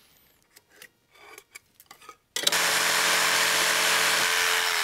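A few faint handling clicks, then a little over two seconds in a jigsaw starts and cuts steadily through a small piece of poplar, transferring the leg angle onto a cutoff.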